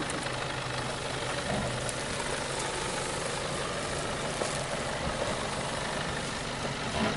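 Nissan Patrol's engine running steadily at low revs as the off-roader creeps down a steep grassy bank.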